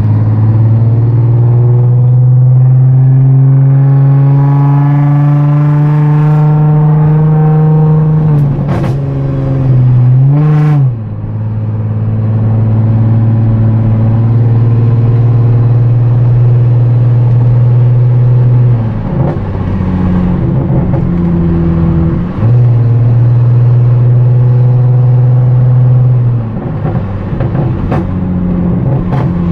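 Infiniti G35's 3.5-litre VQ V6 through a custom exhaust, heard from inside the cabin while driving: a loud low drone as the engine pulls up through the revs, a sudden drop and a short blip of revs near the middle, then steady cruising with dips as the throttle is lifted. A few sharp cracks come as the revs fall.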